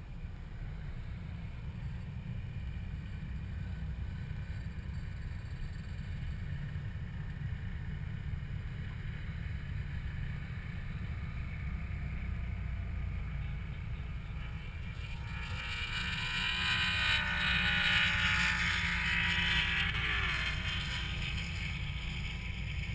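Steady low rumble of wind buffeting a camera mounted on the hood of a slowly driving car. About fifteen seconds in, a louder hissing rush swells, peaks a few seconds later and fades with a falling pitch.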